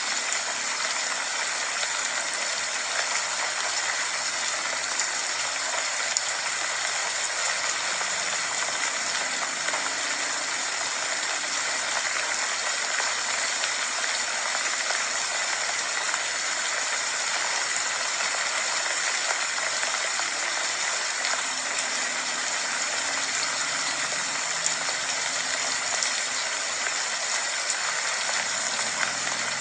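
Rain falling steadily, an even hiss of water with no breaks.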